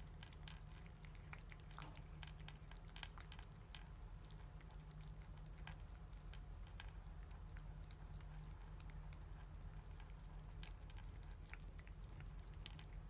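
Cats licking a Churu squeeze-tube treat: faint, irregular wet licking clicks and smacks over a steady low hum.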